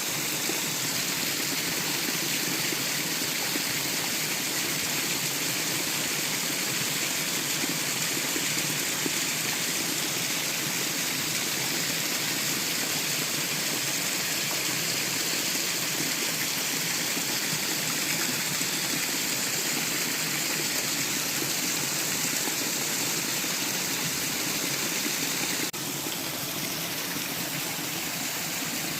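Waterfall rushing: a steady, full wash of falling water that drops abruptly to a slightly lower level near the end.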